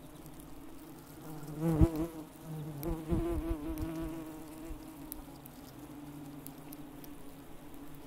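Honey bees and yellow jacket wasps buzzing at a hive entrance. A wing buzz passes close about two seconds in and again a second later, louder, with a wavering pitch.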